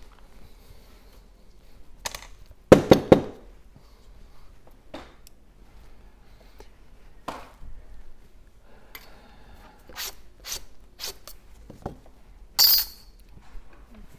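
Scattered small clicks and metallic clinks of repair tools and small parts being handled on a phone-repair bench, loudest in a short cluster about three seconds in.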